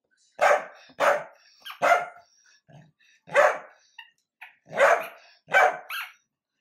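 Dachshund barking, about seven short, loud barks at uneven intervals, the last two close together near the end.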